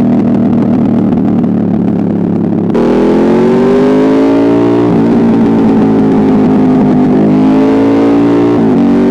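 Aprilia Dorsoduro 1200's V-twin engine running loud through an Arrow exhaust with the dB killer removed and the catalytic converter deleted. It holds a steady note at first, then from about three seconds in its pitch climbs slowly under throttle, dipping briefly about five seconds in and again near the end.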